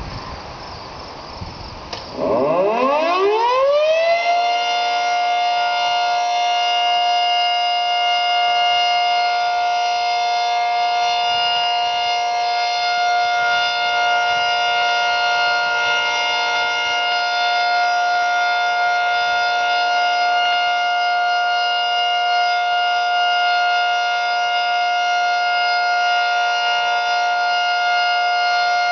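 Federal Signal 3T22 three-tone outdoor warning siren winding up about two seconds in, its pitch rising to a steady chord and then holding a steady sound.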